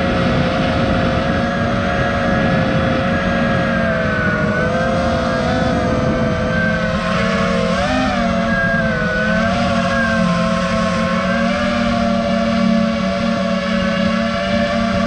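Four brushless motors and 5-inch props of a 6S FPV quadcopter (Lumenier ZIP 2407 1700Kv motors, DAL Cyclone 5040 props) whining steadily with a rush of prop wash, heard from the GoPro mounted on the quad. The pitch wavers slightly with the throttle, with a brief rise and dip about eight seconds in.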